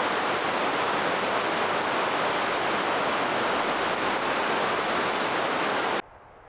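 Loud, steady rush of white-water rapids tumbling beside a wooden footbridge; it cuts off suddenly near the end.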